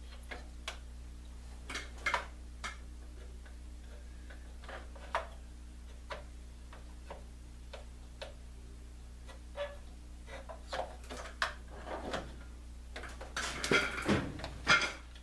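Scattered light clicks and taps of small parts and tools being handled on a workbench, with a busier cluster of knocks near the end, over a steady low electrical hum.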